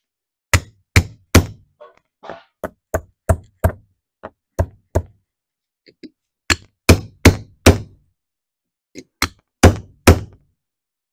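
A hammer striking a metal drift bar held in a hydraulic cylinder gland: about twenty sharp metal blows in quick bursts of three to five, with two short pauses.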